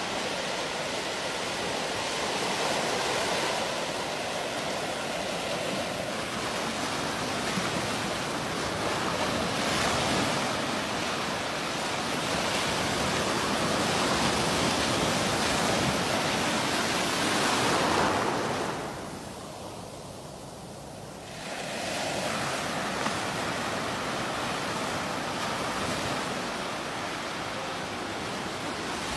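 Ocean surf: small waves breaking and washing in, a steady rush of water that swells and eases, dropping to a brief lull about two-thirds of the way through.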